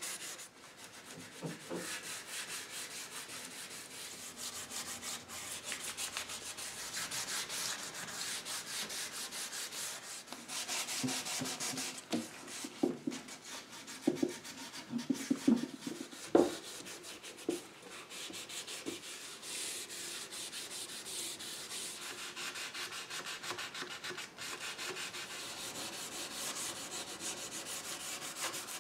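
Hand wet-sanding of oak with 600-grit sandpaper lubricated with Danish oil: a steady, rapid back-and-forth rasping rub, the sound of the rough, pebbly crawled finish being cut smooth. A few knocks of the sanding hand against the chair come partway through.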